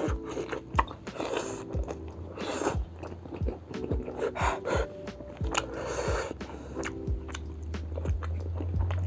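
Close-miked chewing and biting of food, with some crunch, over background music with a steady beat.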